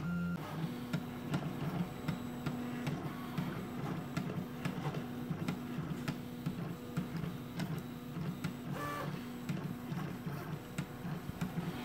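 Stepper motors of an open-frame desktop 3D printer whining as the print head moves while printing a part, in short tones that jump in pitch every fraction of a second, with small clicks.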